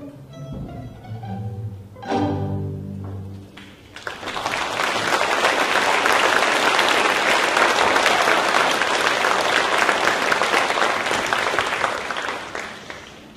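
A string orchestra with cellos and double basses plays its closing notes, ending on a final chord held from about two seconds in. About four seconds in, an audience breaks into applause that carries on steadily and fades away near the end.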